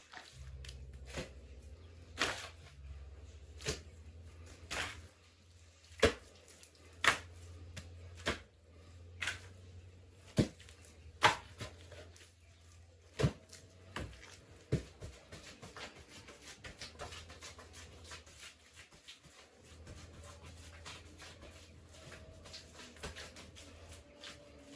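Sharp knocks of hand work, about one a second, then lighter, quicker clicks and scrapes after about fifteen seconds, over a low steady hum.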